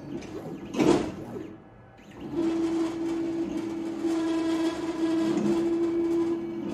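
Homemade CNC plasma table's axis drive motors running with a steady whine as the gantry moves a marker pen through a test drawing on cardboard. There is a sharp knock about a second in and a short lull in the motion around the two-second mark before the whine resumes.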